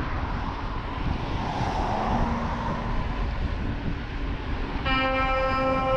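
Wind and road noise on a bicycle-mounted action camera, with the low rumble of a dump truck closing in from behind. About a second before the end, the dump truck's horn starts a loud, steady, held blast.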